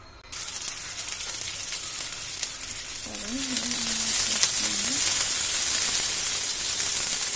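Cut pieces of nalleru (veldt grape) stem sizzling in hot oil in a kadai as they are stirred with a spoon. The sizzle starts suddenly as the pieces hit the oil and grows louder about three seconds in.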